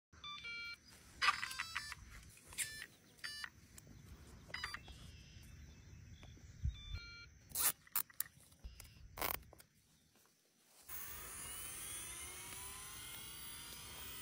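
Small clicks, taps and brief plastic squeaks of a doll being handled and strapped onto a toy RC dirt bike. About eleven seconds in, the bike's small electric motor starts whirring steadily, its pitch climbing slowly.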